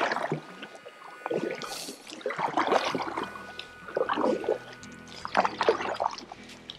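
Pelican kayak paddle strokes dipping into calm water and dripping, one stroke about every second and a half, under background music.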